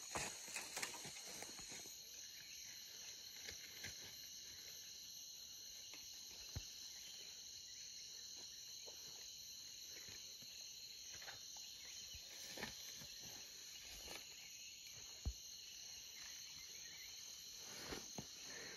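Faint, steady high-pitched forest insect chorus, with a few soft scattered rustles and snaps in dry leaf litter.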